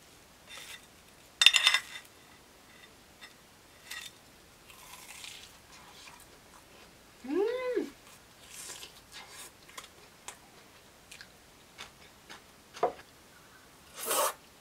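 Eating sounds: a ringing clink of metal tongs on a ceramic plate about a second and a half in, light clicks of chopsticks and soft chewing, a short hummed "mm" that rises and falls in pitch about halfway, and a quick slurp of thick udon noodles near the end.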